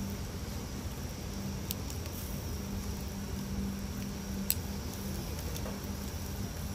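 Metal tongs clicking lightly against a wire grill grate a few times as they move shrimp, the plainest click about four and a half seconds in, over a steady low rumble and hum.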